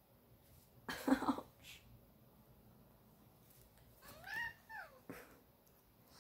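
A cat meowing once about four seconds in, a single meow that rises and then falls in pitch. About a second in there is a short rough burst of sound.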